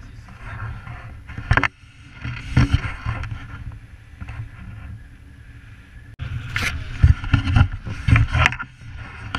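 Wind buffeting a camera microphone during a paraglider flight: an uneven low rumble with louder gusts about a second and a half in and again through the last few seconds.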